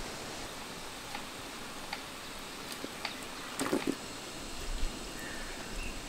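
A large pot of chicken simmering over a wood fire: a steady low hiss with a few faint crackling clicks, and a short clatter about three and a half seconds in as metal tongs turn a chicken in the pot.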